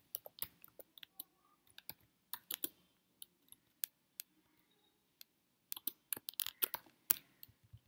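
Computer keyboard keys clicking in irregular bursts of typing, sparse at first, with a quick run of keystrokes about six seconds in.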